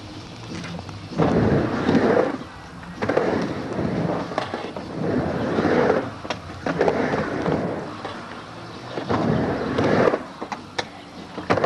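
Skateboard wheels rolling back and forth across a halfpipe ramp, a rush that swells and fades with each pass about every two seconds, with a few sharp clacks of the board striking the ramp.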